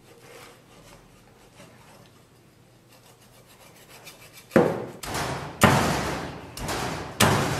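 A cleaver rasping through a pig's head, cutting skin and flesh in three or four drawn strokes. The strokes start about halfway in, after a quiet first half.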